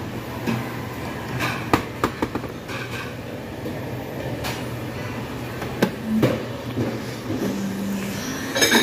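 A steady low mechanical hum with scattered sharp clicks and knocks, and a cluster of clicks near the end.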